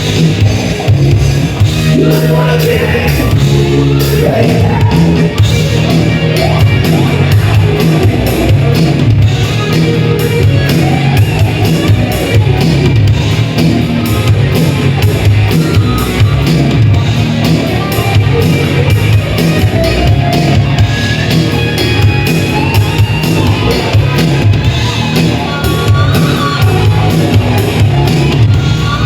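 Live rock band playing loudly with drums, bass and electric guitar, a singer's shouted vocals over the top.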